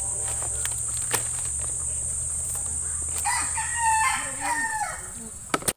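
A rooster crowing from about three seconds in, over a steady high-pitched hiss, with a few sharp knocks from a knife cutting through a jackfruit before it. The sound cuts off suddenly near the end.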